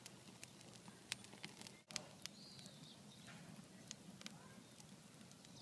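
Faint crackling of a wood campfire in a fire ring: scattered sharp pops and snaps over a low hiss.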